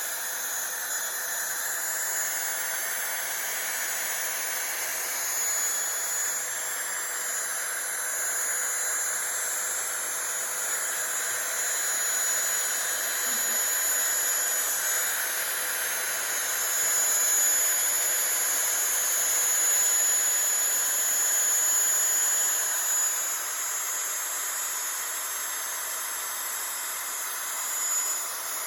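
Desktop CNC router spindle running with a steady high whine as a 1/8-inch up-cut bit mills 2 mm aluminium sheet.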